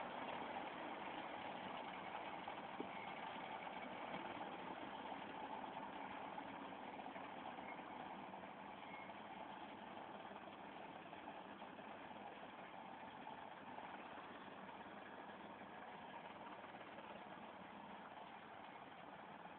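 Faint, steady running of an IHC 633 tractor engine, heard from a distance and slowly fading.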